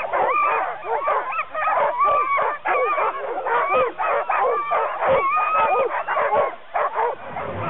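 A team of harnessed sled dogs barking and yelping excitedly, many short high yips overlapping, as they strain at the start line eager to run. The calls thin out near the end.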